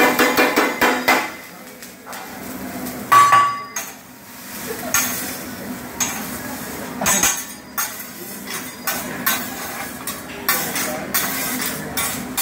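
Metal hibachi spatulas clacking and tapping on a steel teppanyaki griddle as the chef chops and turns fried rice, in quick irregular knocks, with one loud ringing clang about three seconds in.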